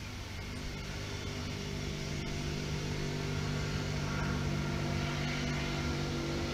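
A steady engine drone holding one pitch, slowly growing louder.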